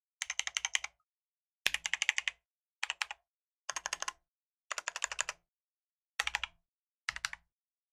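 Typing on a Keychron Q10 mechanical keyboard: seven short bursts of rapid keystrokes, each under a second, with brief pauses between them.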